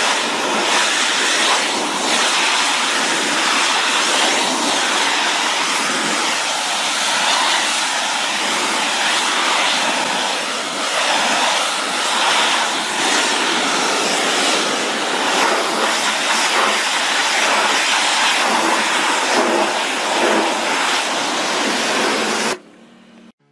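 High-pressure water jet from a pressure-washer lance spraying onto a stone statue: a steady, loud hiss of spray that cuts off suddenly near the end.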